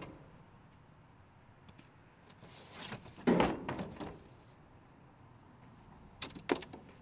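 A thin plywood sheet handled in a metal dumpster: a scrape builds up, then a loud knock about three seconds in and a short clatter as the sheet is pulled out and flung aside, followed by a few sharp knocks near the end.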